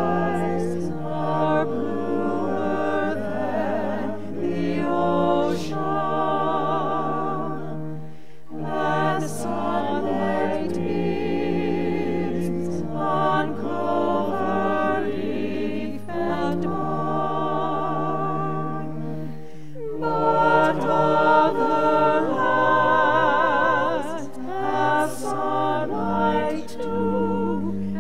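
Small mixed church choir singing a hymn or anthem in phrases, with short pauses between them.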